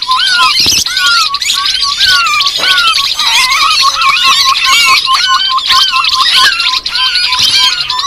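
Bird-lure recording of grey-headed babbler (tepus kepala abu-abu) calls: a dense, overlapping chorus of loud chattering and squeaky calls, over a steady string of short repeated notes, about three a second.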